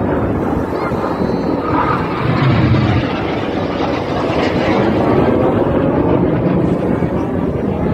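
Jet aircraft flying past in an aerobatic display: a loud, steady engine rush that swells about two to three seconds in and again around five seconds.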